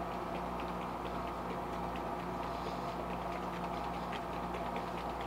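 A steady mechanical hum with faint ticks about twice a second.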